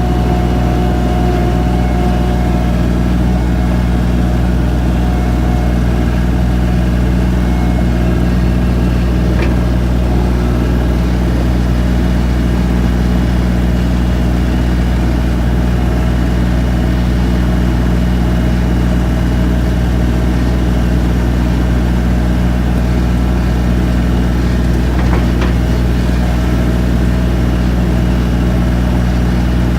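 Skid steer loader engine running steadily at a constant speed, heard close up with no change in pitch.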